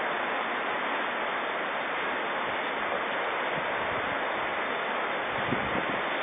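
Steady, even rushing of a swollen, muddy river in flood, its water racing over and around submerged bushes. A few faint low bumps come near the end.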